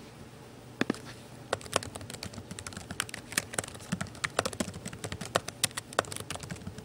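Typing on a computer keyboard: an irregular run of quick key clicks, starting about a second in.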